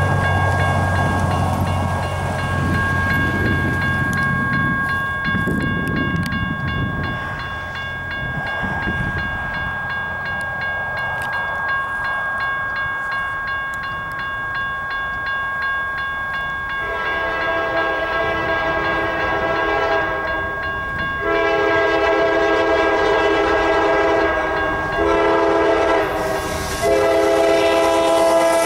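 Railroad crossing bell ringing steadily while a car drives over the crossing. Then the multi-chime horn of an approaching CSX ES44DC locomotive sounds the grade-crossing signal: two long blasts, a short one, and a final long one, loud and growing as the train nears.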